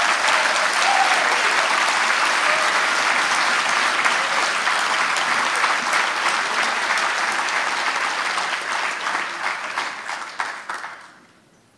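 Audience clapping steadily, thinning out and stopping near the end.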